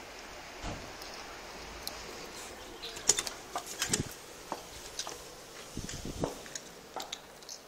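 Steady outdoor hiss, then from about three seconds in a run of sharp clicks and knocks as a white door is handled and someone steps through it.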